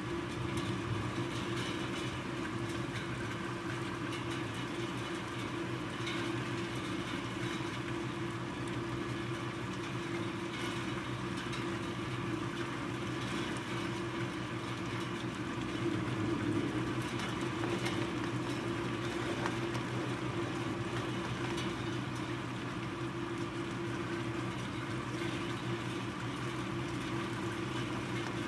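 Rain falling steadily, an even rushing noise with a low hum underneath; it swells a little about sixteen seconds in.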